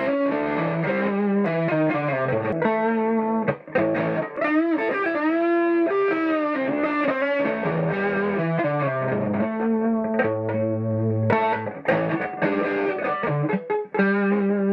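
Electric guitar played with the fingers through a Marshall Valvestate 8040 combo amp's boost channel and 12-inch Celestion speaker, distorted, a run of notes with some bending up and down in pitch around the middle. The preamp out is patched straight into the power amp in, bypassing the corroded effects-loop jack sockets, so the guitar signal reaches the speaker again.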